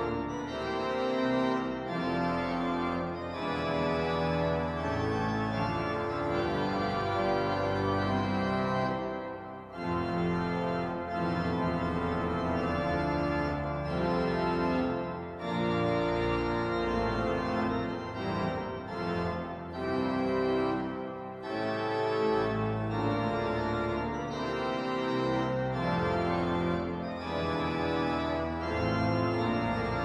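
Organ music with full sustained chords that change every second or so, easing off briefly about nine and a half seconds in.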